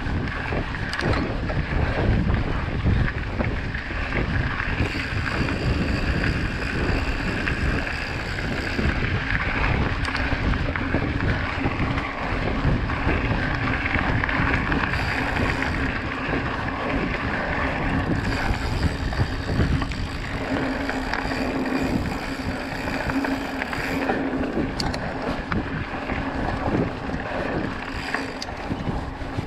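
Wind buffeting a GoPro microphone as a mountain bike rolls steadily along a gravel path, its 29-inch knobby Maxxis tyres crunching over the grit, with many small rattles and knocks from the bumps.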